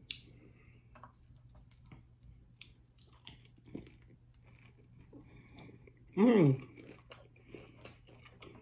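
Close-up biting and chewing of a hard corn taco shell: scattered small crunches and wet mouth clicks, with a brief vocal sound from the eater about six seconds in.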